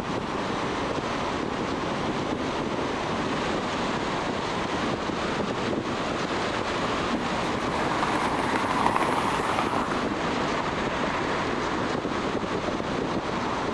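Steady tyre and wind noise of a car driving at highway speed on a concrete road. About eight seconds in, another car passes close on the left, and the noise swells and then fades.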